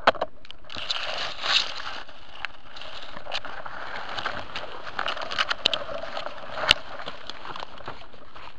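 Rustling with many scattered small clicks, and one sharp click near the end.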